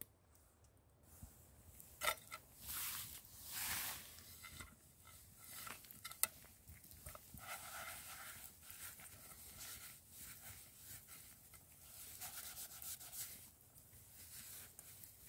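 A hand scouring the inside of a stainless steel camping pan with soil and forest litter to clean it: irregular gritty rubbing and scraping, with a couple of sharp clicks.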